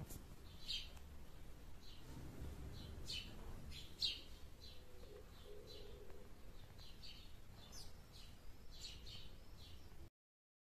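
Birds chirping in the background, many short high chirps at irregular intervals, with a brief click about four seconds in; the sound cuts off abruptly near the end.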